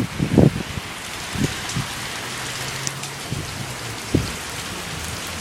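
Heavy rain pouring down: a steady, even hiss of the downpour, with a few sharp knocks of drops striking close by.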